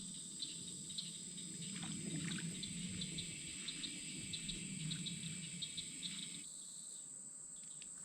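Insects buzzing and chirping: a steady high drone with short chirps repeated several times a second over a low rumble. The chirps and rumble drop away about six and a half seconds in, leaving the drone.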